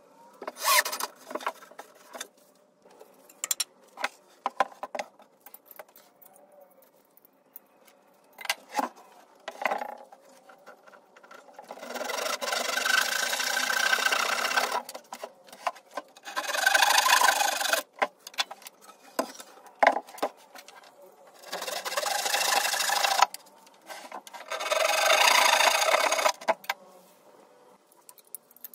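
Rasping on wood in four stretches of about two seconds each, with scattered light knocks and clicks between them.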